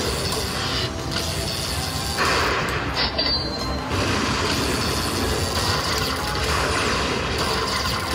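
Lightning Link Moon Race slot machine playing its electronic bonus music and win effects as the win meter counts up, against a busy casino floor background.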